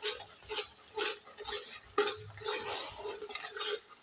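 Metal spatula scraping and stirring thick masala paste around a metal kadhai as it fries in oil, in repeated strokes about two to three a second.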